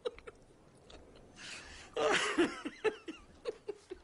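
A man laughing hard and hoarsely: a wheezy intake of breath about a second and a half in, then a loud burst of laughter breaking into a string of short chopped laughs.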